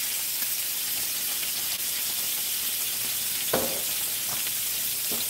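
Snapper fillets frying in butter with garlic and capers: a steady sizzle, with a brief knock about three and a half seconds in.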